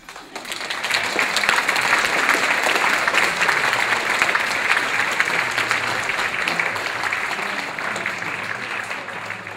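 Audience applauding, building up over the first second and easing off slightly toward the end.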